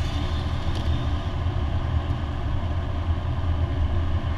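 Steady engine drone and road noise inside the cabin of a Lancia Delta HF Turbo driving at a constant speed.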